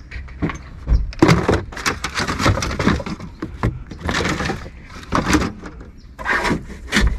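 Loose plastic car parts and trim being handled and shifted around in a car trunk: irregular knocks, rattles and scrapes.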